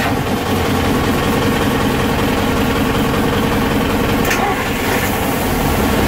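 MAN 800 marine diesel engines running steadily at idle, heard loud inside the engine room, back in normal running after a simulated fire-suppression shutdown.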